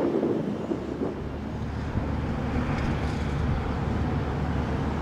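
Union Pacific diesel locomotive idling, a steady low hum. Wind on the microphone for the first second.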